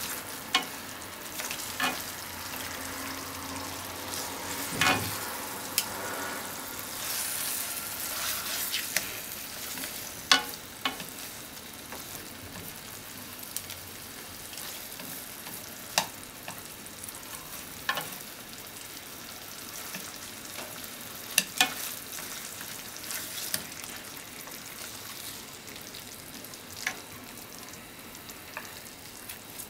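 Pork and sliced onion sizzling in a thick red sauce in a nonstick frying pan, with sharp clicks of bamboo chopsticks against the pan as the meat is turned and coated. The sizzle eases a little toward the end.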